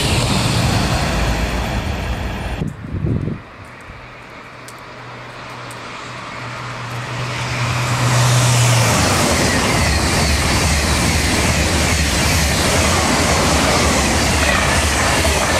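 High-speed TGV trains passing at speed. First comes the rushing noise of one pulling away; after a cut, a Ouigo TGV Duplex approaches with steadily rising noise and a low steady hum, and from about eight seconds in it rushes past loudly.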